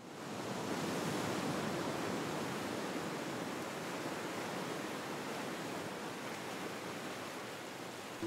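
Sea surf washing against a rocky shore, a steady rush of waves that fades in from silence over the first second.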